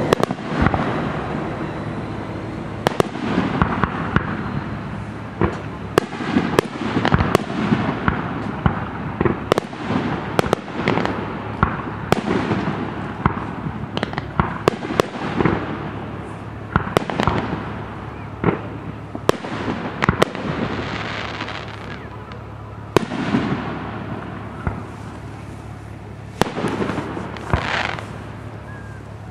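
Aerial fireworks display: shells bursting in a rapid, irregular series of sharp bangs, several a second at times, with a continuous wash of noise between the bangs.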